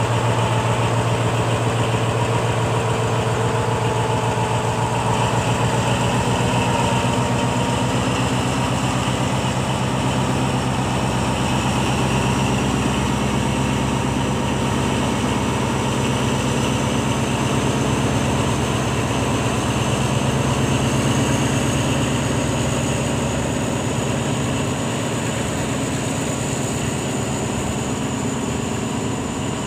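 Diesel locomotive of a freight train running steadily at low power, with a low, even engine drone. A thin high whine rises slowly through the second half.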